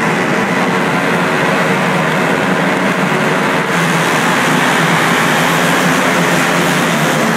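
A pack of flat-track racing motorcycles revving on the line for a restart, then accelerating away together about four seconds in, the engine noise getting louder and brighter as they launch.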